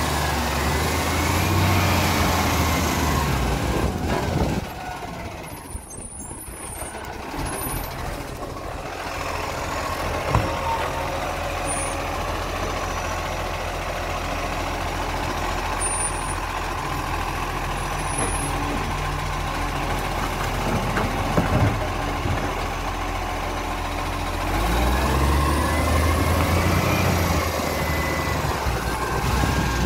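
Side-loader garbage truck's diesel engine running, with its hydraulic arm lifting and tipping a wheelie bin into the hopper. The engine revs up and back down in the first few seconds and again near the end, with a quieter spell in between.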